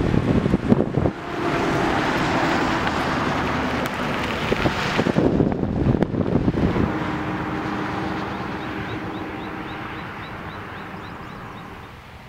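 Wind buffeting the microphone of a camera on a moving bicycle riding a gravel trail, gusting hardest in the first second and again around five to six seconds, then easing off toward the end.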